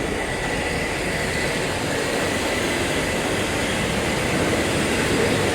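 Veneer board sanding line running: a steady, even machine drone with a faint steady high whine.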